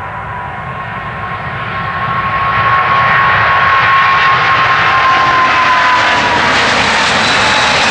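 A Boeing 777-200's twin Pratt & Whitney PW4000 turbofans at full takeoff thrust during the takeoff roll. The jet roar swells as the airliner nears, then holds loud, with a steady engine whine that drops in pitch as it passes.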